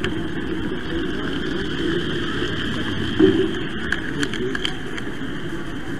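Running noise of a model train heard from a camera riding on it: a steady hum and rumble from its motor and wheels rolling along the track, with a few short clicks.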